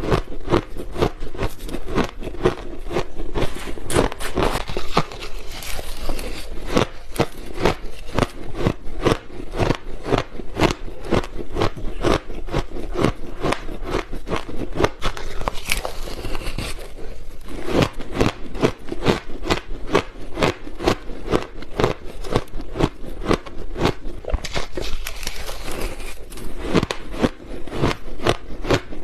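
Close-miked crunching of ice being bitten and chewed: a dense, unbroken run of sharp cracks and crackles, several a second.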